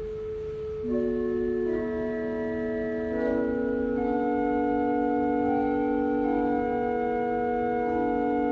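Church organ playing slow, held chords, the notes changing every second or so, with a low rumble underneath.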